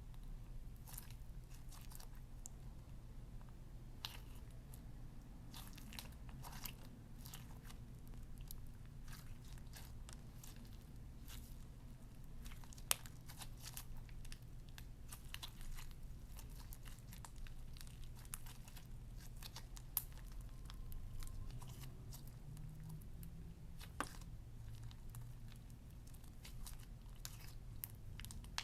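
Slime with eyeshadow and lipstick mixed in, being worked by hand: scattered sharp clicks and crackles, over a faint steady low hum.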